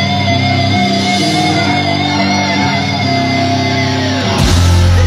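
Death metal band playing live: distorted electric guitars hold slow, heavy sustained chords, and a loud low hit with a burst of high crash-like noise lands about four and a half seconds in.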